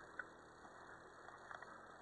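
Near silence with faint crunching of footsteps on dry fallen leaves: a few soft ticks and rustles.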